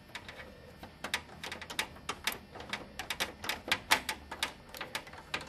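Screwdriver driving the screw that holds the graphics card's metal bracket to the PC case: a run of sharp, irregular clicks, quickest in the middle.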